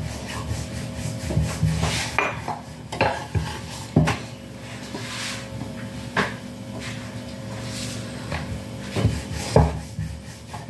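Kitchen utensils clattering at the stove: scattered sharp clinks and knocks of dishes and pans with some rubbing and scraping, the loudest about four seconds in and again near the end.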